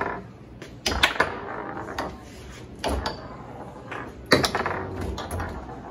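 A run of hard knocks and clacks in four short clusters, about a second or two apart.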